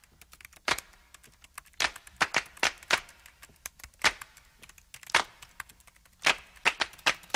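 Typing sound effect: a dozen or so sharp keystroke clicks at an uneven pace, each click marking a letter of the on-screen title text being typed out.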